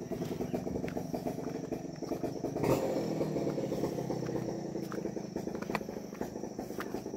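A steady, low buzzing drone like a small motor, under a thin constant high insect whine. Footsteps scuff along the path, with one louder knock a little under three seconds in.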